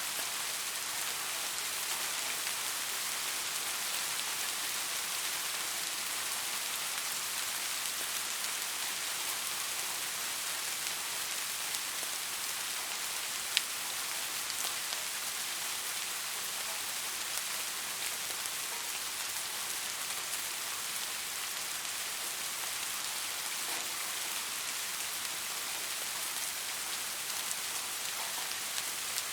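Steady rain falling, a dense even hiss of many drops, with one sharper tap about halfway through.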